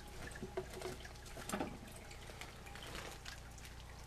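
Faint rustling and light clicks of a hand reaching into a plastic lizard tank to catch an alligator lizard, a little louder about a second and a half in, over a steady low hum and a faint trickle of water.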